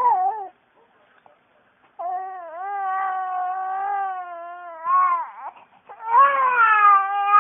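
Baby crying in long, drawn-out wails: a short cry at the start, one of about three seconds from two seconds in, and another starting about six seconds in.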